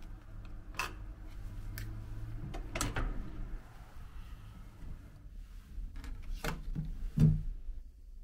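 Sharp clicks and knocks from a hotel room's card-key door lock, its lever handle and the plastic key-card power holder as the door is opened and the card is slotted in. The loudest and deepest knock comes about seven seconds in.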